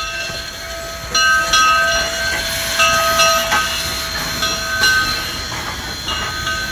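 Train running on the track with a low rumble and several steady high squealing tones that start and stop again and again.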